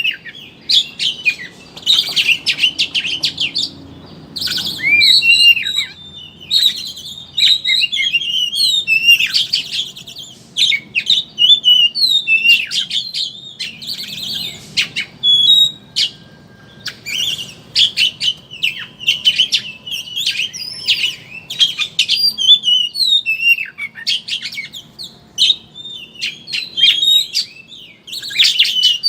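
Oriental magpie-robin singing in the rapid, chattering 'ngeriwik' style: quick bursts of high, varied twittering notes with brief pauses between them.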